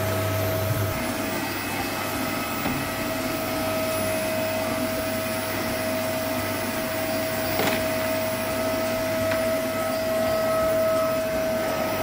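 Red canister vacuum cleaner running steadily with a constant whine, its floor head pushed over a carpet.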